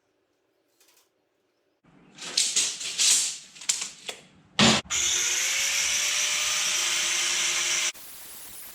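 Power tool working on steel: a stretch of rough, uneven grinding starting about two seconds in, a single loud knock, then a steady hiss with a motor tone that climbs and holds for about three seconds before cutting off near the end.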